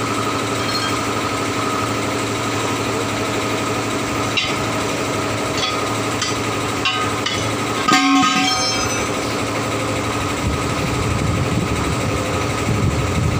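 An engine runs steadily throughout, with a few light metallic clicks and, about eight seconds in, a loud clang with a short ring as the steel rim of a truck wheel comes free of its tyre.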